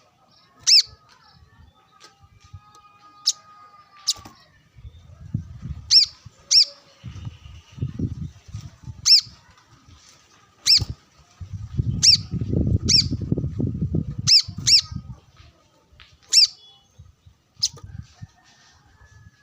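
Brown-throated sunbird giving loud, sharp, high chip calls, about a dozen spaced a second or two apart, some in quick pairs. Bouts of low rustling run under the calls in the middle stretch.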